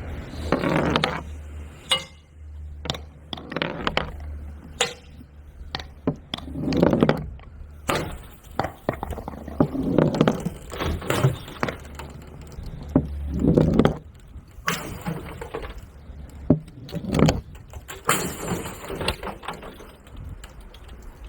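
Balloons being handled and popped: an uneven series of short dull pops and thuds mixed with sharp clicks, over a steady low hum.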